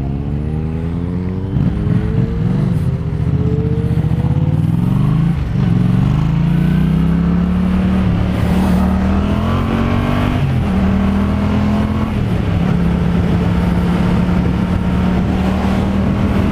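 2015 Yamaha FZ-07's 689 cc parallel-twin engine with an aftermarket exhaust, accelerating hard with its pitch climbing. It shifts up about five seconds in and again about ten seconds in, then holds a steady cruise.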